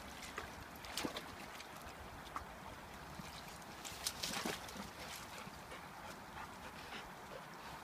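Dogs wading in a shallow, partly frozen creek: scattered light splashes of water around their legs and muzzles over a steady low hiss, with a louder run of splashes about four seconds in.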